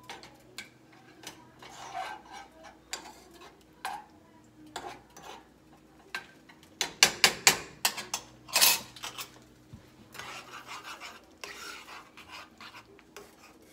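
A metal spoon scraping and clinking against a nonstick skillet while stirring a cream sauce, with a quick run of sharp clinks about seven seconds in and another just before nine.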